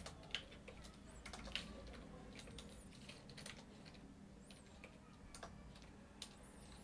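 Faint computer-keyboard typing: scattered, irregular keystroke clicks as short terminal commands are entered.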